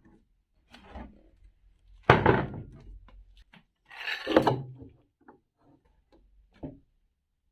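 Wooden pieces being handled and set down: a loud knock about two seconds in, a scrape ending in another knock around the middle, small clicks and a last thunk.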